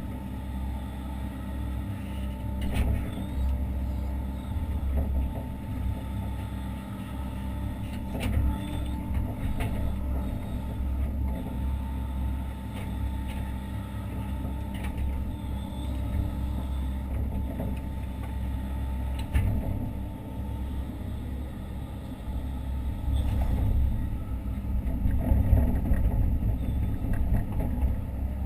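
Hitachi Zaxis 130 excavator's diesel engine running steadily, heard from inside the cab, its level rising and falling as the machine works. A few sharp knocks or clicks stand out over it.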